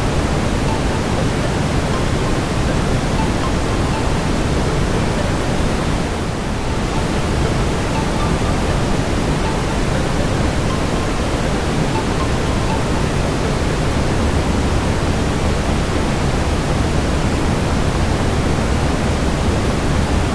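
Steady brown noise: an even, deep rushing hiss weighted toward the low end, with a slight brief dip about six seconds in.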